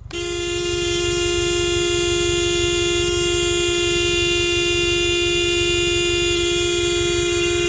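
Vehicle horn held down in one long steady blast for about seven and a half seconds, with the engine running underneath; sounded to move cattle along.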